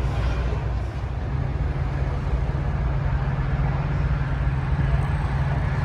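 Steady low rumble of vehicle engines running, under a constant wash of outdoor noise.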